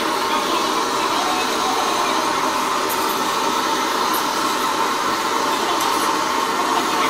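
Gas torch flame burning with a steady, even rushing hiss.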